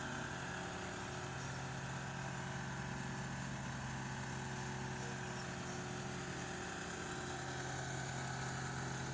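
Engine of a truck-mounted hydraulic crane running steadily, with an even low hum and no change in speed.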